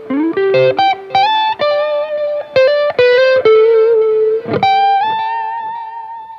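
Electric guitar played through a BOSS SD-1 Super Overdrive pedal: a single-note lead phrase with a bend near the start, ending on a long held note with vibrato that slowly fades.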